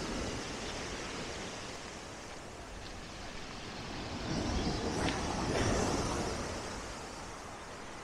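Sea waves washing onto the shore, one wave surging in and falling back about halfway through.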